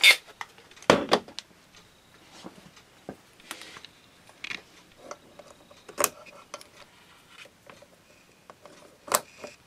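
Clicks, taps and rustles of fiber optic patch cords being handled and their SC connectors pushed into the blue ports of a fiber cross connect box, with a few sharper knocks about a second in, about six seconds in and near the end.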